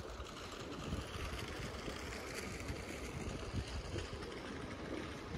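Steady outdoor background noise: an even low rumble with a light hiss over it, and no distinct event standing out.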